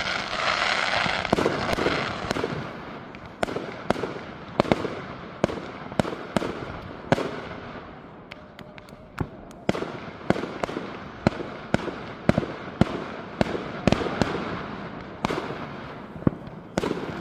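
Fireworks display: an irregular run of sharp bangs from bursting shells, about one or two a second, with a steady hiss in the first couple of seconds.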